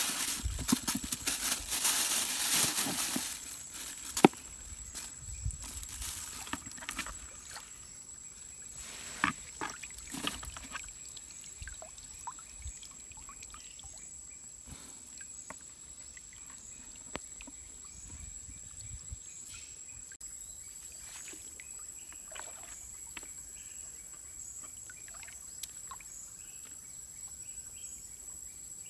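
A plastic bag rustles loudly for the first three seconds or so, with a sharp click just after. Then come quieter, scattered splashes and trickles of shallow river water as a folding umbrella fishing net is handled and set on the bottom.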